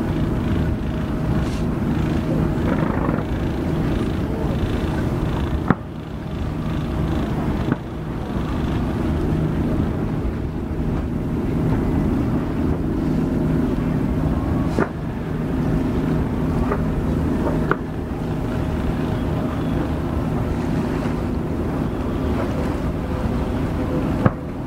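Steady drone of the boat's engine, broken by about five sharp cracks of fireworks going off, a few seconds apart.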